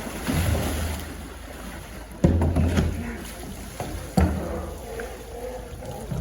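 Polar bear sloshing and splashing in its pool water, with three heavy thumping splashes about two seconds apart.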